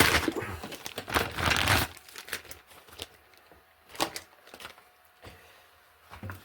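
Hands handling things: about two seconds of rustling and crinkling, then a few separate sharp clicks and knocks.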